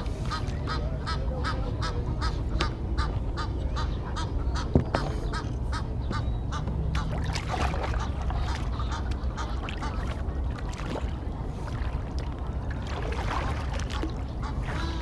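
Waterfowl calling: a quick run of repeated honking calls over the first few seconds, then scattered calls, over a steady low rumble. A single sharp knock about five seconds in.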